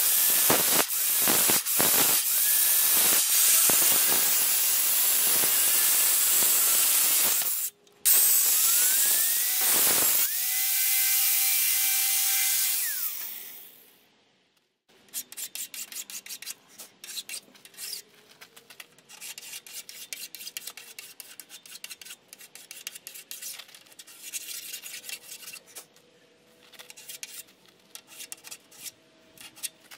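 Angle grinder with a thin cutoff wheel cutting steel plate: a loud hissing screech that drops out for a moment and resumes. Then the grinder spins free, its whine rising to a steady pitch before it winds down about halfway through. Faint clicks and taps of metal being handled follow.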